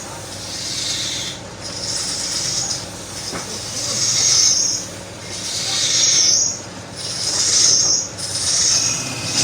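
Woodturning lathe running, with repeated hissing scrapes against the spinning wood, each about a second long, over the steady hum of the motor.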